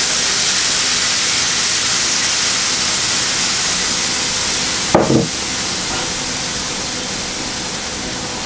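Red wine sizzling and hissing as it boils hard in a very hot pan, reducing quickly. A sharp knock about five seconds in, after which the hiss eases slightly.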